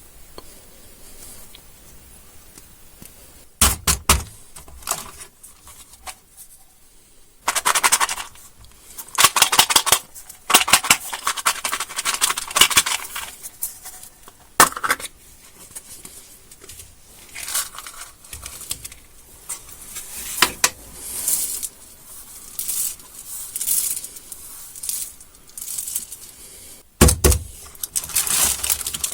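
Plastic candy wrappers crinkling and tearing open in irregular bursts, with a few sharp clicks of hard packaging or candies knocking together and a heavier thump near the end.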